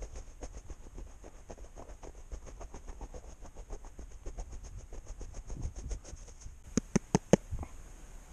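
Footsteps crunching through snow: a quick, even run of small crunches, then four louder sharp clicks near the end.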